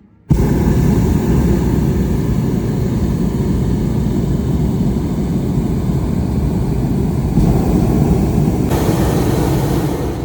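Propane burner of a hot air balloon firing in one long, steady roar that starts abruptly and cuts off about ten seconds later.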